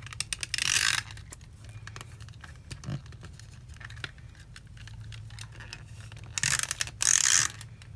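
Tombow Mono Permanent adhesive tape runner drawn across paper planner pages, laying down glue tape in two hissing strokes: a short one about half a second in and a longer one near the end. Light clicks and rustles of paper being handled come between them.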